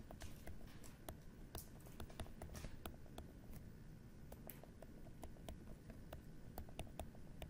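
Faint, irregular clicks and short scratches of a pen stylus writing on a tablet screen.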